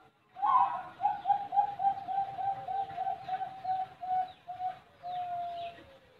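Bangkok-line zebra dove (perkutut) singing: a quick run of about a dozen short, clipped coos that end in one longer drawn-out note.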